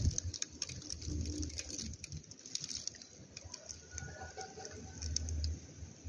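Outdoor background noise: low rumbles that swell and fade twice, with scattered light clicks and a faint thin high tone about four seconds in.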